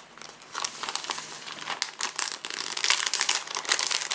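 Crinkling and crackling of plastic and card as trading cards are handled and slid into the plastic pockets of a collector binder, growing busier about halfway through.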